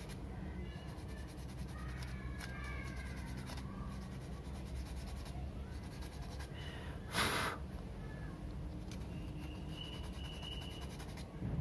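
A thin plastic rod being sanded by hand against sandpaper: faint rubbing over a steady low hum, with one louder, short stroke about seven seconds in.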